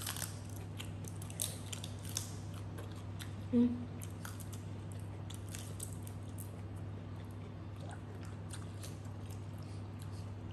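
Close-up eating sounds of a person chewing and biting crab, with sharp clicks and crunches as the pieces are bitten and picked apart by hand, over a steady low hum. A short, louder low vocal sound comes about three and a half seconds in.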